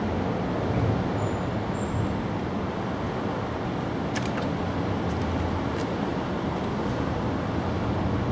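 Steady low outdoor background rumble, with a few faint ticks about four and six seconds in.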